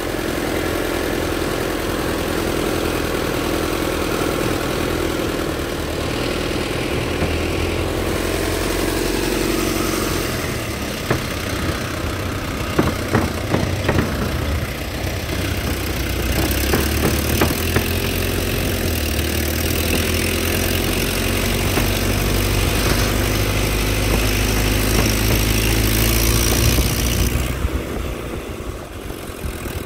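Truck engine running as the truck drives slowly along a bumpy dirt track. A cluster of knocks and rattles from the jolting truck comes in the middle, and the engine sound eases off near the end.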